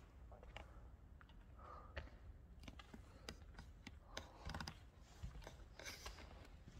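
Faint, irregular clicks and scuffs of footsteps on a gritty, debris-strewn floor, at about one or two a second.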